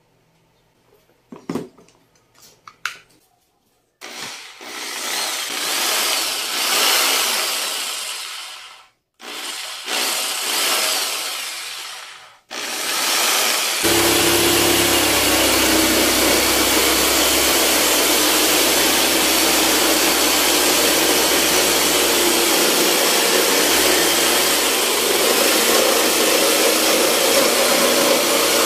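Bosch GST 700 jigsaw: a few light clicks as its speed dial is turned, then the motor run without load in short spells, speeding up and slowing down with two brief stops. From about halfway it runs steadily, the blade sawing through a wooden board.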